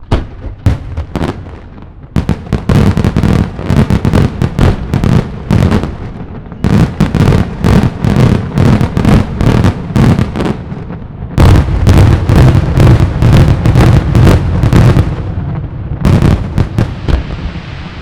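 Daylight fireworks salutes going off in rapid volleys of loud bangs, many a second. They come in four or five waves with short lulls between, and thin out near the end.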